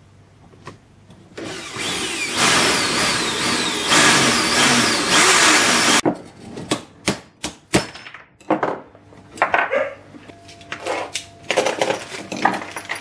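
Corded electric drill drilling out the worn, riveted pin of a door linkage held in a bench vise, its motor pitch wavering up and down as the bit bites, for about four seconds. It is followed by a run of light metallic clicks and knocks as the drilled-out linkage parts are handled and worked apart.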